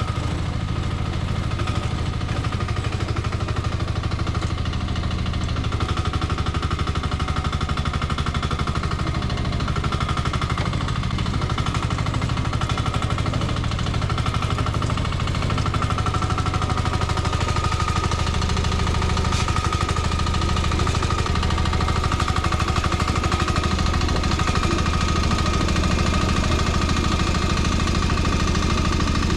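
Nuoman E10 1-ton mini excavator's small engine running steadily with a rapid chugging beat and a steady high whine over it.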